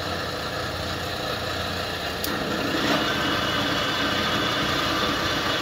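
Andry Chow Polamco TUG-40 geared-head engine lathe running, its spindle turning with the power cross feed engaged in reverse. A steady whir of gears and feed drive comes from the 7.5 hp machine, with a light click about two seconds in, and then the sound gets a little louder.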